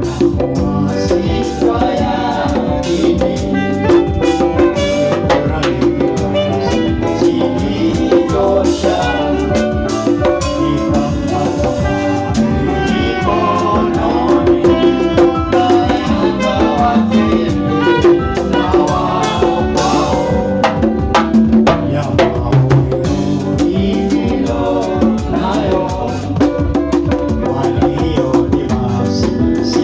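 A live band playing upbeat dance music: hand-played conga drums keep a busy rhythm under saxophone and other pitched instruments.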